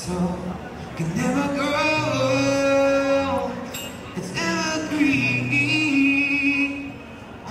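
Background music: a song with a singing voice in two long phrases of held, wavering notes over a steady low accompaniment.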